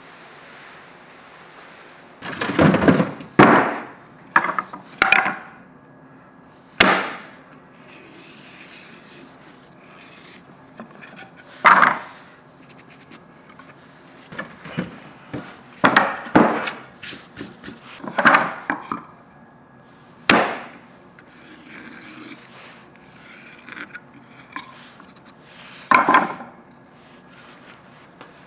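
Pieces of wood being handled in a workshop: about a dozen irregular wooden knocks and short scrapes, spaced a second or several apart, over a faint steady hum.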